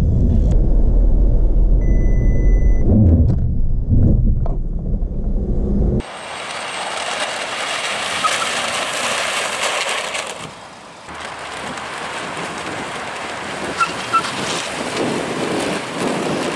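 Cabin noise of a car at speed, a heavy low rumble, with a single electronic warning beep of about a second near the start: the car's collision warning during an automatic emergency braking test. About six seconds in it cuts to a steady outdoor hiss of wind on the microphone, with a few faint chirps.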